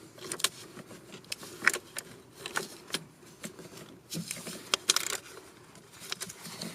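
Irregular light metallic clicks and clatter of a quarter-inch ratchet and socket turning a small Torx screw, with a small cluster of clicks about two-thirds of the way through.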